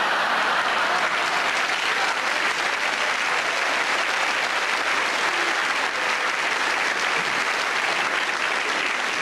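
Audience applauding, a dense steady clapping that holds through the whole stretch, in answer to a comedian's punchline.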